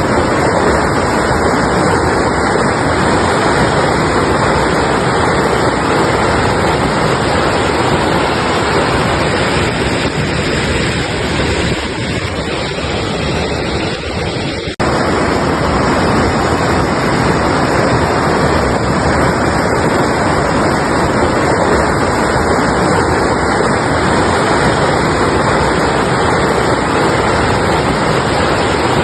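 Altai mountain river rushing, a loud steady roar of water. Just before the middle it thins a little, then cuts out for an instant and comes back abruptly at full level.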